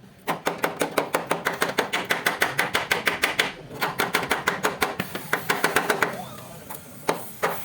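Rapid metal-on-metal hammer strikes on steel, about seven to eight blows a second, pausing briefly twice.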